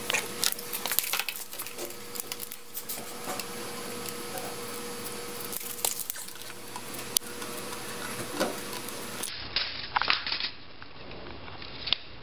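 Felt-tip marker dabbing short marks onto the side of a concrete beam against a tape measure: a string of small, irregular taps and scratches, with a brief louder rustle near the end.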